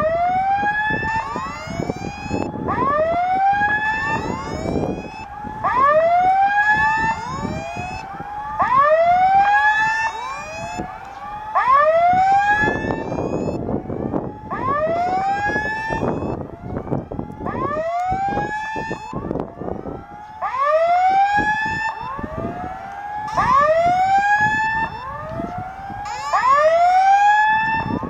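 Level-crossing warning sounder repeating a short rising electronic whoop about once a second, warning that the barriers are down for an approaching train.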